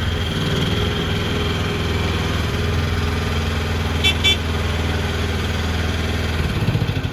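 Gas engine of a mini skid steer loader running steadily, with two short high beeps about four seconds in. Near the end the engine note drops away.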